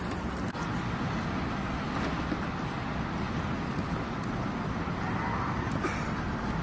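Steady outdoor background noise: an even low rumble with hiss, with a few faint clicks.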